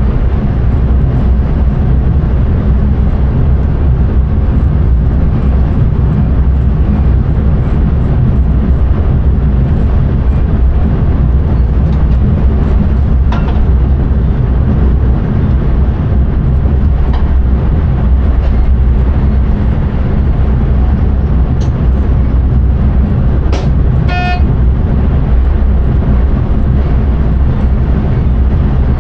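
Intercity train running along the line, heard from the driver's cab: a loud, steady rumble of wheels on track and running gear. A few faint clicks occur, and a brief tone sounds once, about 24 seconds in.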